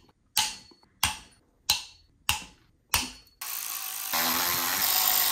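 Ratchet and socket loosening bolts on an engine's cylinder head: a series of sharp ratchet strokes about two every three seconds, then a continuous run of ratcheting for about two seconds near the end.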